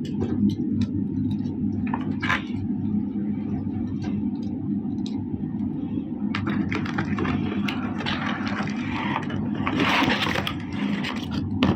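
Small clicks and taps of toy pieces being handled, then crinkling plastic packaging from about halfway through, loudest near the end, over a steady low hum.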